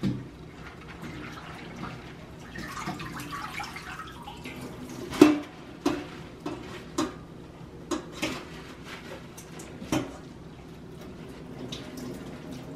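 Leafy greens being washed by hand in a stainless steel bowl of water at a kitchen sink: water splashing and dripping as the leaves are lifted out, with several sharp knocks of the metal bowls, the loudest about five seconds in.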